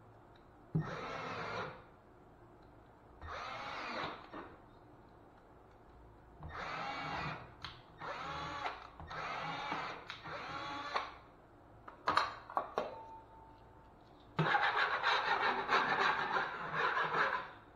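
Cordless drill driving screws into a drywall patch: about six short runs of the motor, each a second or so, whining up and down in pitch. Near the end comes a louder scraping sound of about three seconds as a hand works across the patch.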